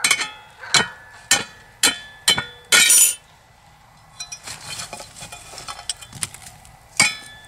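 Small metal shovel clinking against a cast-iron Dutch oven lid and charcoal briquettes as hot coals are set on top: about five sharp clinks roughly half a second apart, then a longer scrape about three seconds in. After that comes softer scraping among the coals in the fire pit, and one more clink near the end.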